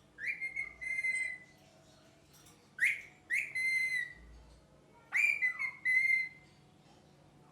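Ringneck parrot giving three high, whistled calls about two and a half seconds apart, each call in two parts with a sharp start.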